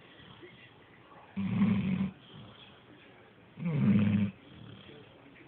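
A sleeping pet snoring in an even rhythm: two snores about two seconds apart, each a buzzing rasp lasting under a second.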